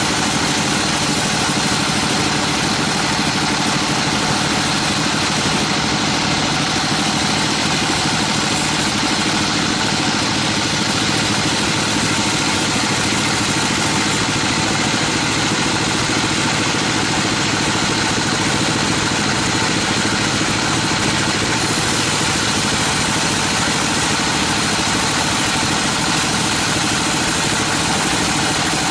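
Band sawmill running steadily, its blade sawing lengthwise through a large teak log.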